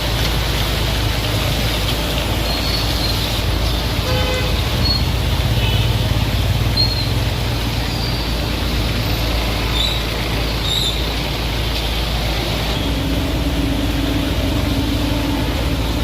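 Road traffic with a steady wash of noise and a short vehicle-horn toot about four seconds in. A steady low hum joins near the end.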